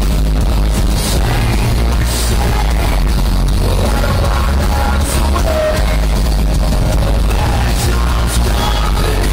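Rock band playing loud live music with drums and guitars, heard from within the audience in a concert hall.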